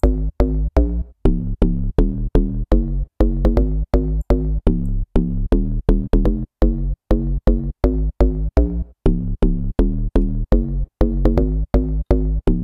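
Deep house FM-style synth bass from Serum, an FM bass sample in the noise section layered with a wavetable oscillator. It plays a looped bassline of short, plucky notes, about three a second, each with a sharp clicky attack. Its envelope sustain is turned down, so the notes cut off short.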